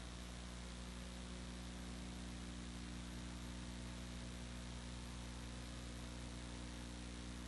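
Steady electrical hum, a stack of even low tones, over a constant hiss: the background noise of the recording, unchanging throughout.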